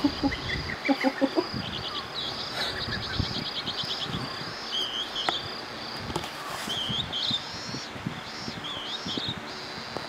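High, repeated chirps and short trills of small birds, over the steady hiss of an electric fan.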